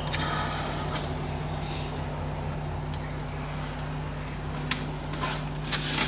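A steady low electrical hum runs throughout. Over it comes a faint rubbing as masking tape is pressed and smoothed along a thin aluminium strip on a steel bench, and there are a few light clicks near the end.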